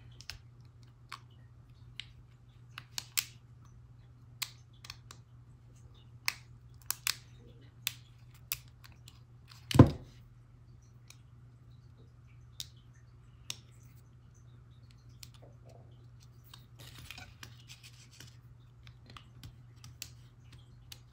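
Small clicks and scratches of plastic against metal as the black plastic antenna cover is worked onto the top of an iPhone 2G's aluminium back, with one louder knock about ten seconds in. A low steady hum runs underneath.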